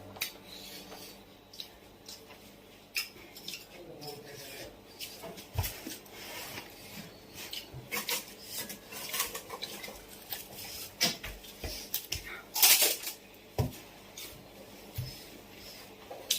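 Close-up eating sounds of puchka being eaten: scattered sharp clicks and crunches, with clinks of utensils against dishes, and a louder burst about twelve and a half seconds in.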